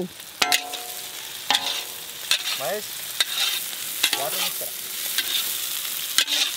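Sliced onions sizzling in hot oil in a large iron kadai as a long-handled metal ladle stirs them, scraping and clinking against the pan about once a second.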